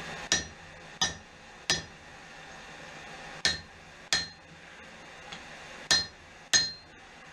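Seven hammer blows on steel at the anvil, in groups of three, two and two, each with a brief metallic ring, as the hot blade is worked into a bend.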